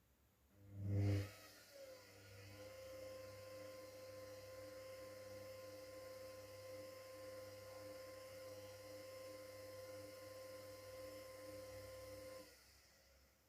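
Whirlpool FL 5065 washing machine in its 600 rpm spin programme: a low thump about a second in, then the motor comes up with a short rising whine and turns the drum at a steady speed with an even whine for about ten seconds before it stops suddenly.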